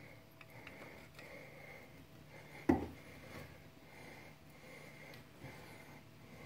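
Quiet handling of tools and parts at a brake caliper, with faint light clicks and one sharp knock a little under three seconds in.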